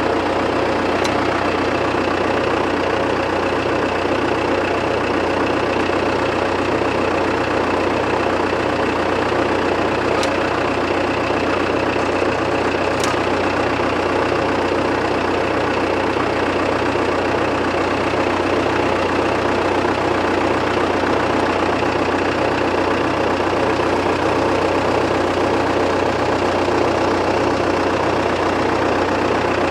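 1961 Case 831C tractor's diesel engine idling steadily, with a regular low pulsing throughout.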